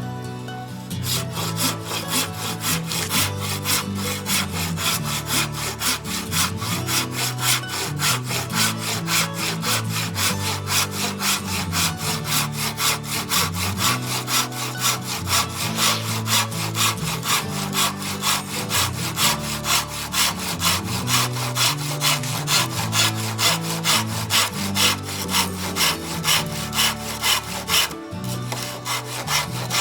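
A hand saw cutting through a persimmon branch in steady back-and-forth strokes, about two a second, with a brief pause near the end. Background music plays underneath.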